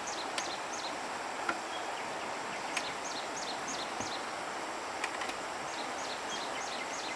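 A songbird calling in phrases of four to five short, high, downslurred notes, repeating about every three seconds over a steady background hiss. A few faint sharp clicks come in between.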